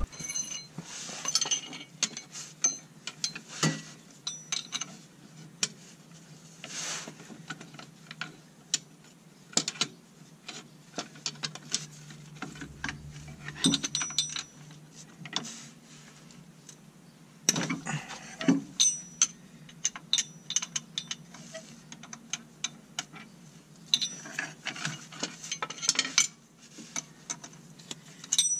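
Hand tools (a ratchet and a wrench) working the drive shaft's bolts under a car: irregular metallic clicks and clinks of tool on bolt, in short bunches with pauses between.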